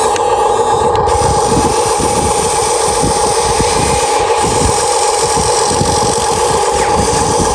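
Huina 1593 radio-controlled excavator's electric motors running with a steady whine, over an uneven low rattle.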